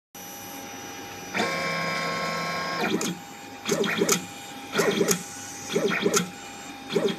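The axis motors of a four-axis soldering robot at work. First there is a steady whine for about a second and a half as the head travels across to the board. After that comes a repeating pattern about once a second of short rising-and-falling motor whines with clicks, as the head steps from pin to pin for point soldering.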